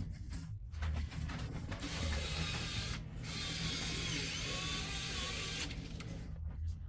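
Mechanical clicking and rattling of hands working on copier parts, denser and noisier for a few seconds in the middle, over a steady low hum.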